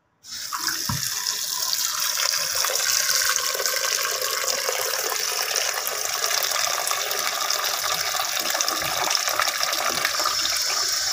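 A thin stream of water pouring steadily into an aluminium pressure cooker of mutton pieces and whole spices, splashing into the rising water as the pot fills to make the meat's stock (yakhni). It starts suddenly just after the start.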